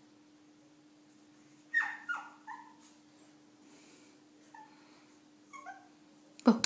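Shih Tzu puppy whimpering and whining in short high cries that fall in pitch: a few about two seconds in, more around five seconds, then a sharper, louder yelp at the very end. The crying comes from a puppy afraid to come down the stairs.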